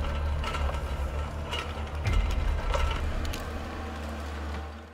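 Eight-wheeled all-terrain vehicle's engine running with a steady low drone, with irregular metallic clanks and knocks over it. It fades out near the end.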